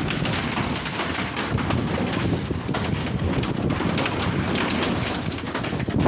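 Strong gusty wind buffeting a phone's microphone during a dust storm: a steady rushing noise with a rumbling, fluttering low end.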